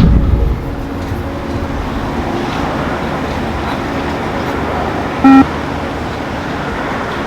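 A single short electronic beep about five seconds in, over a steady background noise. It is the beep-test signal that marks the end of a shuttle run.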